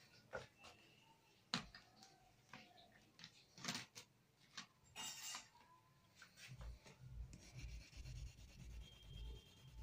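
Faint scattered taps and clicks, the loudest about one and a half seconds in, then from about six and a half seconds in a coloured pencil rubbing back and forth on paper in quick, repeated shading strokes.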